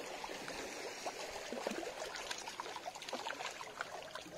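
Water lapping and trickling, with many small irregular splashes and bubbling clicks.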